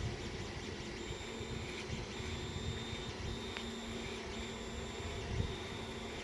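Desktop FDM 3D printers running: a steady fan and motor hum, with the stepper motors whining in high steady tones that break off and restart about once a second as the moves change.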